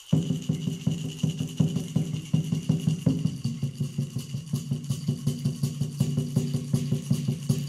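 Water drum beaten in a fast, steady pulse of about four beats a second, each beat with a low ringing pitch, with a rattle shaking along. It starts abruptly over a high, steady tone.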